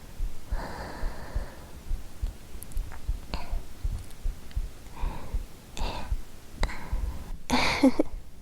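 A person's real heartbeat, soft low thumps repeating steadily, with a woman's breathing over it; near the end comes a louder breathy exhale.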